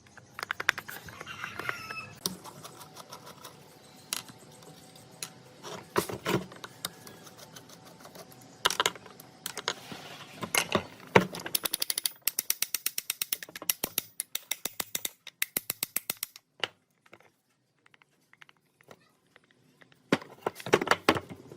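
Hand tools working on the metal parts of an old circular saw: a string of sharp clicks and clinks, with a fast, even run of clicks in the middle, like a ratchet being worked, and a short quieter gap near the end.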